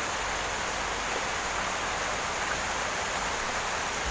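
A steady, even hiss with a faint click or two.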